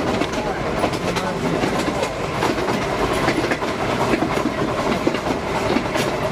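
Narrow-gauge railway carriage running along the track: a steady rumble of the wheels on the rails with frequent clicks and clatter.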